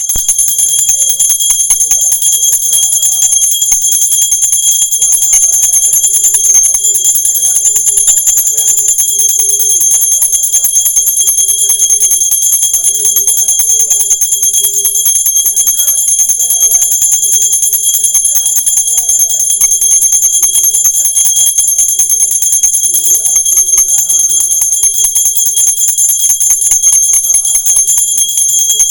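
Background music: a melody over a fast jingling, tambourine-like rhythm, with steady high-pitched tones held underneath throughout.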